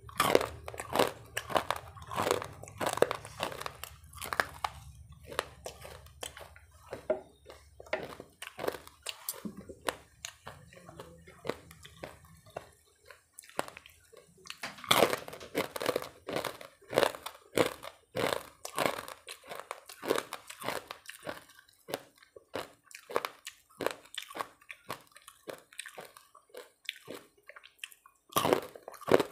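Close-miked crunching and chewing of fried musur dal bori (sun-dried red-lentil dumplings) eaten with rice: many sharp, dry crunches in quick succession, with a short lull about halfway through. A faint low hum underlies the first dozen seconds.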